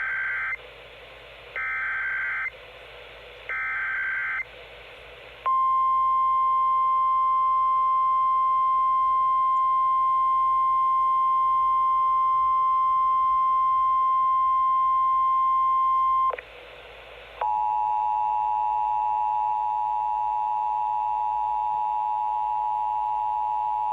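NOAA Weather Radio Emergency Alert System activation: three short bursts of screeching SAME digital header data about a second apart, then the steady 1050 Hz warning alarm tone held for about eleven seconds. After a brief break, a lower steady chord of several tones sounds together, an attention signal ahead of the spoken alert.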